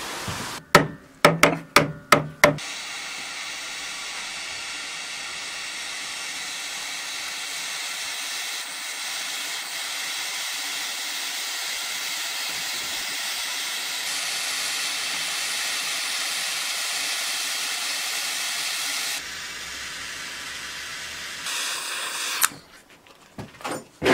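Gas torch burning with a steady hiss while a metal seam is heated and joined with filler rod, after a quick run of sharp clicks at the start. The hiss changes and fades about 19 seconds in, and a few knocks follow near the end.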